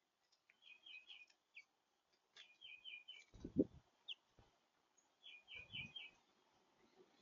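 Small songbird chirping in three short bouts of quick notes. Two dull low thumps are heard, the first and louder about three and a half seconds in, the second just before six seconds.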